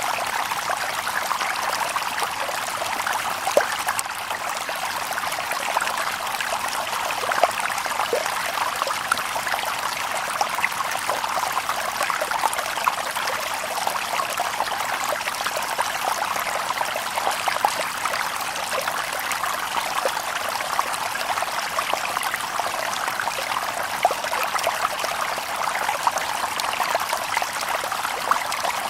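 Shallow stream babbling and trickling over stones, with many small splashes and plops in a steady, continuous wash of water.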